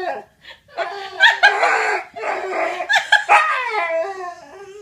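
A dog vocalizing: a string of pitched barks and drawn-out yowls, some sliding down in pitch.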